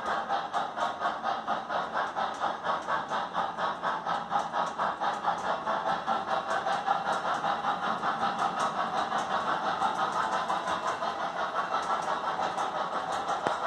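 Electronic steam chuff from an MTH Pennsylvania G5s model locomotive's Proto-Sound 3.0 sound system, a steady beat of about four chuffs a second as the engine runs at an even speed.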